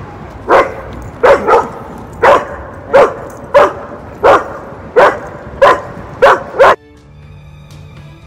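German Shepherd barking hard about eleven times, sharp single barks and quick doubles: reactive barking at another dog while on leash. The barking stops suddenly near the end and background music takes over.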